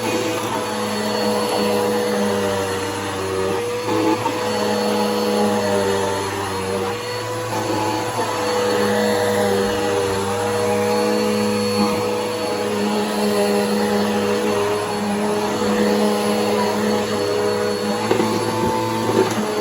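Bissell PowerForce Helix upright vacuum cleaner running steadily with a constant motor whine, its lower hum fading and coming back a few times as it is pushed and worked over the fabric.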